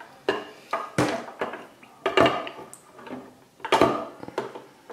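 Metal parts of a dismantled diesel fuel injector clinking and knocking against the stainless-steel tank of an ultrasonic cleaner as they are set into the water: several sharp clinks spread through, each ringing briefly.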